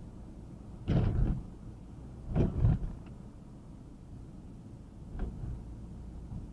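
Steady low rumble of a car driving along a road, broken by two short loud bursts of noise about a second in and at about two and a half seconds, and a fainter one after five seconds.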